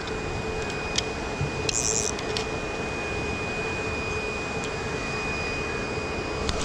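Steady mechanical hum over a rushing noise, with a constant tone throughout, a few faint clicks and a short high hiss about two seconds in.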